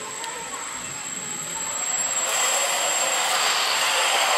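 Electric motor and propeller of a small indoor RC plane in flight, a whirring hiss with a thin high whine. It grows louder about halfway through as the plane comes close.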